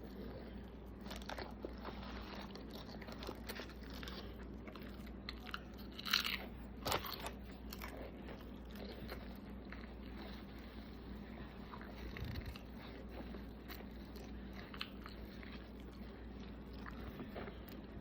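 A person chewing and crunching food up close, with a steady run of small crackly chews and two louder crunchy bites about six and seven seconds in.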